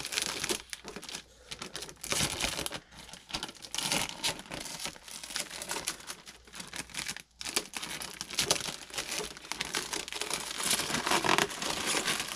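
Packaging being unwrapped by hand: irregular crinkling, rustling and tearing, with a short break about seven seconds in.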